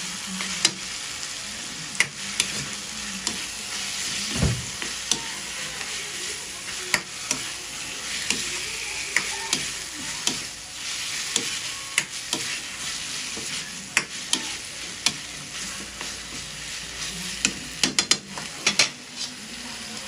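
Raw chicken pieces sizzling in hot oil in a wok while a metal spatula stirs and turns them, with frequent sharp clacks of the spatula against the pan and a quick run of them near the end.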